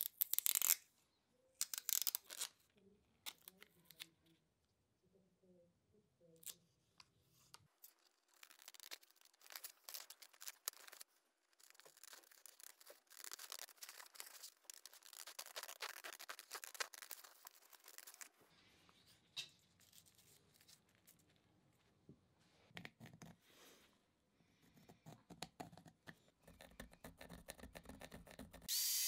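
Masking tape peeled from its roll, with a couple of sharp rips near the start. Then scissors snip through a paper template in quick crisp cuts for several seconds. Softer paper handling and pencil scratching on wood follow near the end.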